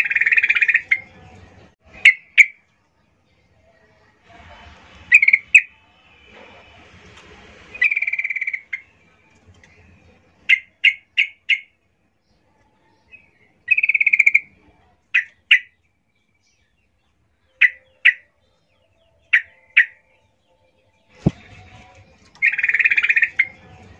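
Female yellow-vented bulbul calling for a male: short sharp chirps, some in quick runs of three or four, broken by a few longer, harsh calls lasting about a second.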